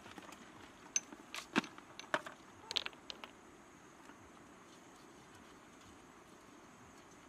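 A quick run of sharp clicks and clinks, hard things knocking together as food is handled in a plastic bucket and a metal cooking utensil is taken up at the pot. They stop after about three seconds, leaving a faint steady high hiss.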